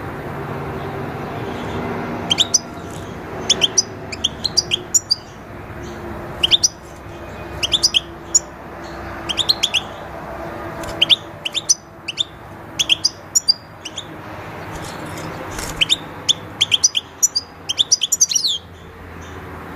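European goldfinch twittering: clusters of quick, high chirping notes that come every second or two, over a faint low background hum.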